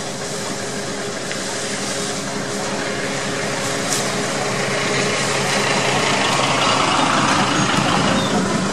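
An engine running steadily, a low hum with a loud hiss that grows gradually louder.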